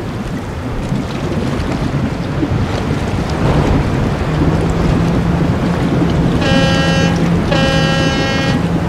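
Cartoon stormy-sea sound effects: wind and waves as a steady noise, with a low motor hum coming in about a third of the way through. Near the end come two short horn blasts.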